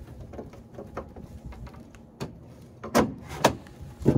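Hard plastic truck-bed swing case being handled and swung out on its pivot: a series of plastic clunks and knocks, the three loudest in the last second and a half.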